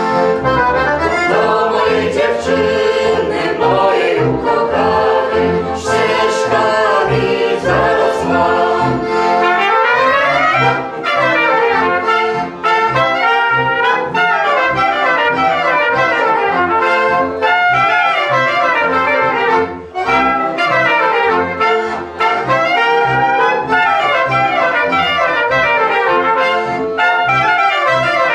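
Folk band of trumpet, clarinet, accordion and double bass playing an instrumental passage, with trumpet and clarinet carrying the melody over a steady beat in the bass.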